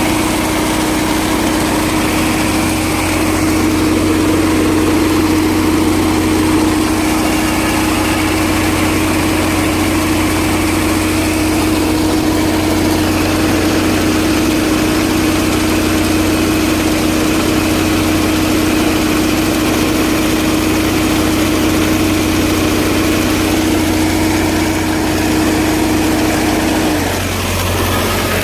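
Tractor engine running steadily, with a steady higher-pitched hum over it that cuts off about a second before the end.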